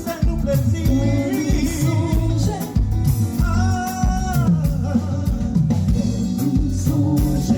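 Live band music: a singer holding long notes over drums, bass and guitar playing a steady beat.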